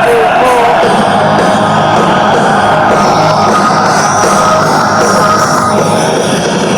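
Loud rock music with electric guitars playing from a recording.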